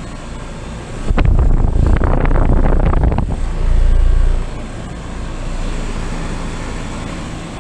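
Outdoor heat pump unit running, with gusts of air buffeting the microphone as a loud low rumble from about a second in until about halfway through, then settling to a steadier, quieter whir.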